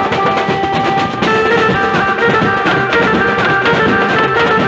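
A procession band playing: several large drums beaten with sticks in a dense, continuous rhythm, with a melody of held notes over them.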